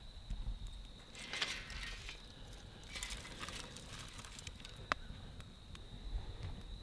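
Campfire of dry sticks crackling, with bursts of crackles a little over a second in and again around three seconds, and one sharp pop near five seconds.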